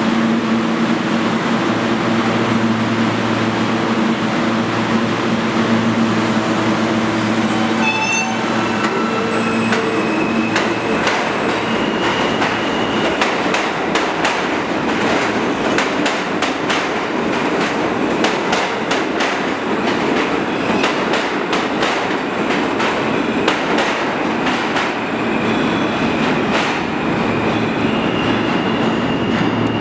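R160 subway train pulling out of an underground station: first a steady hum, then the propulsion motors' whine climbing in steps as it starts. After that the wheels clatter in rapid clicks over the rail joints, with a high wheel squeal, as it gathers speed.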